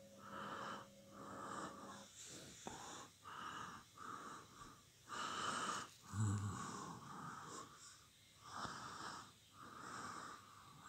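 Faint breathy puffs of a person breathing close to the phone's microphone, about one a second, with a soft low bump about six seconds in.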